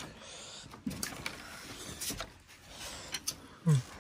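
Scattered light clicks and clinks of a utensil and mango slices against a small glass bowl of dipping sauce, with two brief vocal sounds, one about a second in and one near the end.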